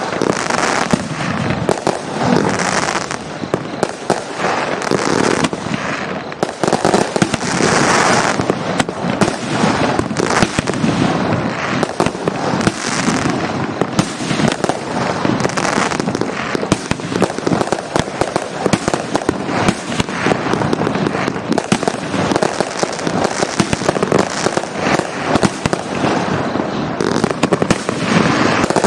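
A 1.5-inch, 25-shot fireworks cake firing, its shots and bursts following one another closely with no break.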